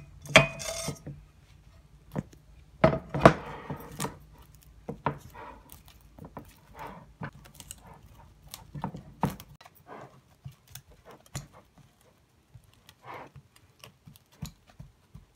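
A pan and spatula knocking and clinking against a glass baking dish as a sticky puffed-rice and marshmallow mix is scraped out, the loudest knocks in the first few seconds. Then soft crackling as the mixture is pressed flat by hand, thinning out near the end.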